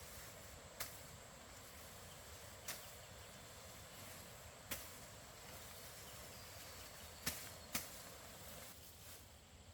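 Five sharp knocks at uneven gaps over a faint, steady hiss; the last two come close together.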